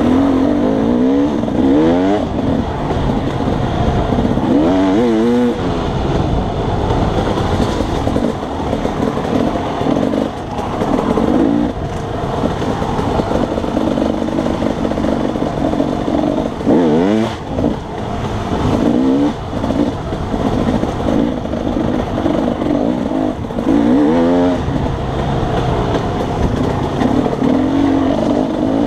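Dirt bike engine being ridden hard on a trail, the pitch climbing and dropping again and again as the throttle is opened and closed and the gears change.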